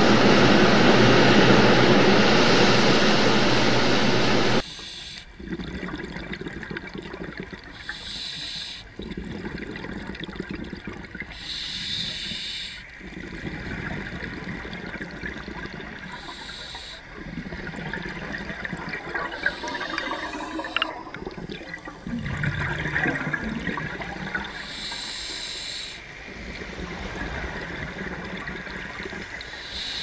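Underwater water noise: a loud, steady rush for the first four seconds or so that cuts off abruptly, then quieter, uneven swirling and bubbling water in patches.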